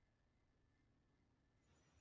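Near silence: a pause between marble clacks.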